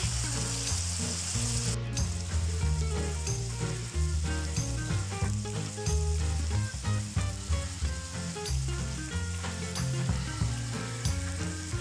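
Bite-size chicken pieces frying in oil in a nonstick frying pan, a steady sizzling hiss as they sear on their first side. Soft background music with a bass line plays underneath.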